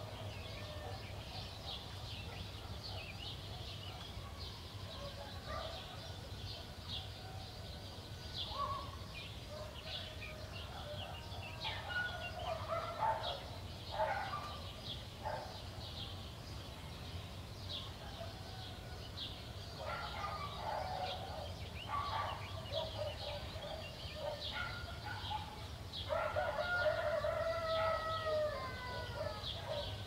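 Small birds chirping continuously, with shorter calls from farmyard fowl in the middle and a rooster crowing once for about three seconds near the end.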